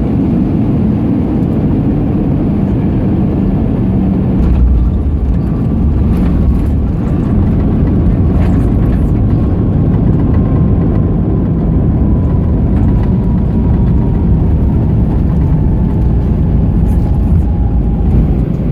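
Airbus A320 cabin noise on the ground just after landing: a steady low rumble of the engines and the wheels rolling on the ground. A faint whine slowly falls in pitch, with a couple of light knocks near the start.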